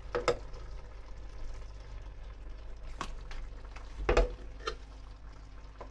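A spoon scooping butter from a plastic tub and tapping it off onto the pan: a few soft clicks and knocks, the loudest about four seconds in, over a low steady background.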